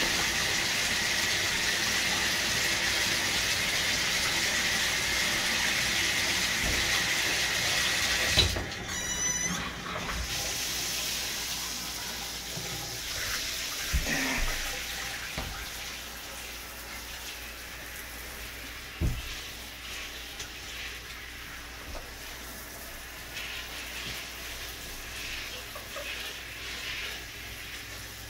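Water running steadily into a bathtub for the puppies' rinse. About eight seconds in it ends with a thump, and the sound drops much quieter, with a few soft knocks later.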